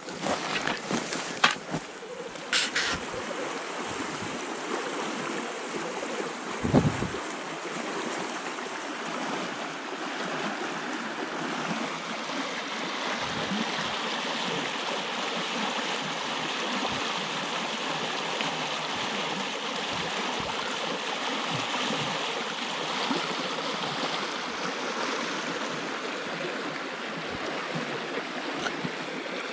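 Small forest river rushing over a shallow rapid, a steady even sound of running water. A few short rustles and knocks come in the first seconds, with one thump about seven seconds in.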